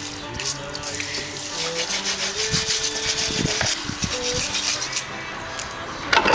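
Steady scratchy rubbing noise over quiet background music with a simple melody, with a louder noisy burst near the end.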